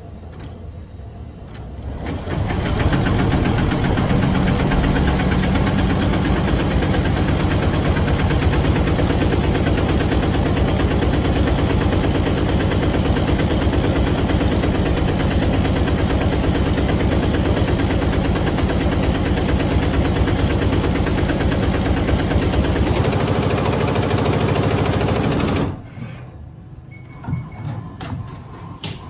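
Tajima multi-head computer embroidery machine stitching a logo at speed: a loud, rapid, even needle clatter. It comes up about two seconds in and drops away about three seconds before the end, leaving a quieter machine sound with a few clicks.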